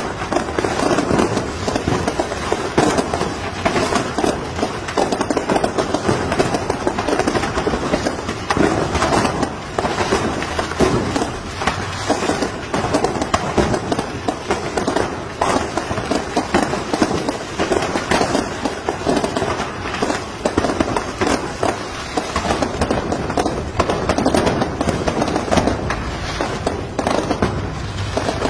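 Fireworks stock of a burning fireworks shop going off: a dense, unbroken crackle of firecrackers and rockets bursting, many bangs a second, loud throughout.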